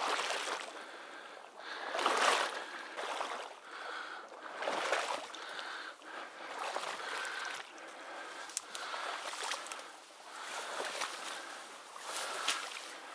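Wading through marsh water in waders: swishing, splashing strides that surge about every one to two seconds, with marsh grass brushing past.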